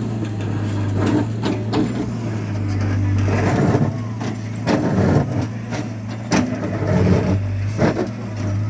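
A machine engine running steadily at a constant low pitch, with irregular knocks and short bursts of clatter from work going on around it.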